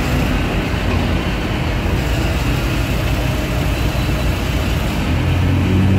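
Road traffic: vehicle engines running in a traffic jam, a steady low engine hum that grows louder about five seconds in.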